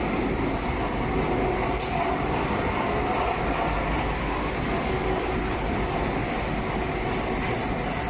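Rotary continuous drum charcoal pyrolysis furnace running, a steady even machine noise with no change in level.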